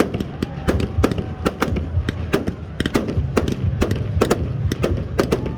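Fireworks shells bursting in rapid, irregular succession, about three or four sharp bangs a second over a low rumble.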